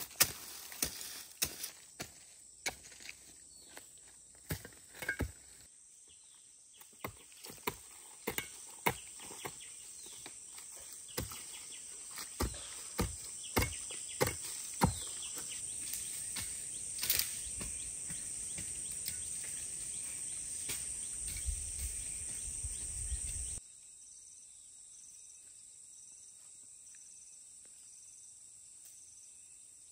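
A hoe striking dry soil and leaf litter in a series of sharp, irregular chops, over a steady high drone of insects.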